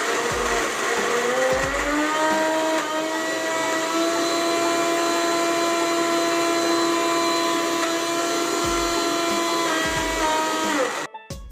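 Electric mixer grinder running, blending raw chicken with a little added water into a paste. Its whine rises in pitch over the first couple of seconds, holds steady, then winds down and stops near the end.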